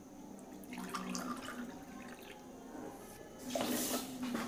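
Water poured from a glass into an aluminium pot of sugar for making sugar syrup. The pour is a splashing gush of about a second near the end.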